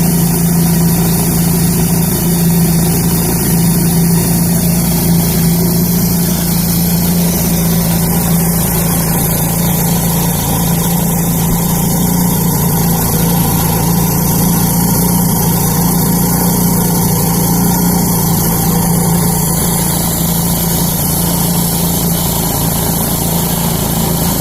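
Wood-Mizer portable bandsaw mill running steadily, its engine holding a constant hum as the band blade cuts through a log.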